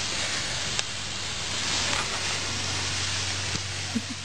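Steady hiss of spraying water, with a light click about a second in.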